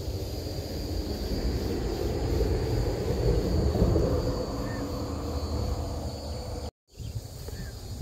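Insects, crickets or similar, chirping steadily at a high pitch over a low, uneven rumbling noise. The sound cuts out completely for a moment near the end.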